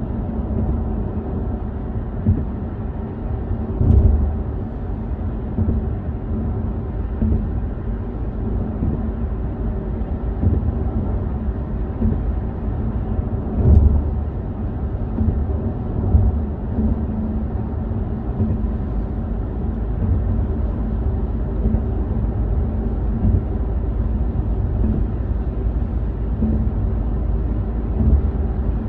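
Car driving on a motorway: a steady low rumble of road and engine noise, with a few short low thumps, the strongest about 4 seconds and 14 seconds in.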